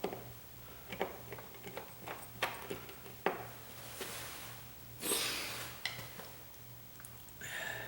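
Screwdriver driving the screws of a light-switch cover plate snug: a series of small clicks and knocks, with a short scraping rustle about five seconds in.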